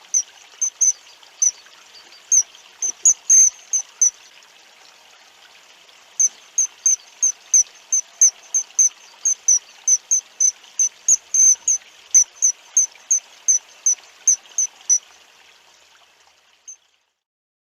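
A run of short, high chirps, about three a second, in a steady rhythm. They pause for about two seconds some four seconds in, then carry on until they stop about a second before the end.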